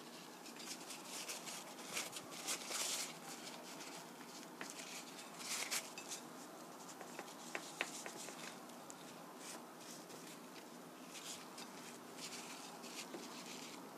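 Paper towel rubbing along the rim of a plate as it is wiped clean: soft, scratchy strokes that come in short runs, with a few faint clicks.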